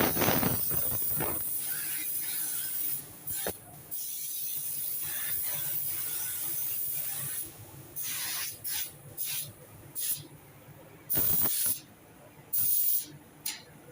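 Air-fed paint spray gun spraying a blending solvent over the seam of a spot-repaired fender, to hide where the new paint joins the old. It gives one long steady hiss of air for about seven seconds, then a run of short hissing bursts from quick trigger pulls.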